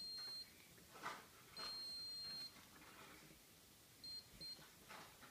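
Electronic beeping at one steady high pitch: two long beeps of about a second each, then two quick short beeps near the end, with faint rustling between them.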